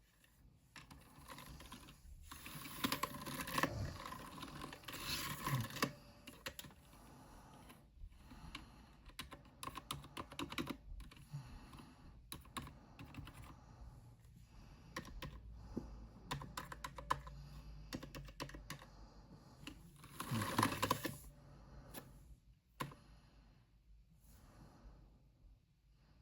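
Typing on a Cherry MX Board 3.0 S mechanical keyboard with Cherry MX Red Silent linear switches. The keystrokes run on throughout, with a flurry of fast typing a few seconds in and another near the end.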